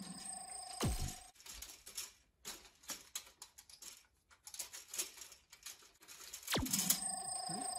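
Light plastic clicking and clattering of Connect Four discs and the upright plastic grid being handled and nosed by a dog, in irregular small clicks. Two short swooping tones falling in pitch come through, about a second in and again near the end.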